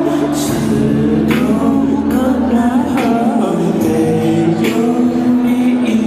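A male singer performing a Mandarin pop ballad live, his voice amplified over steady instrumental accompaniment.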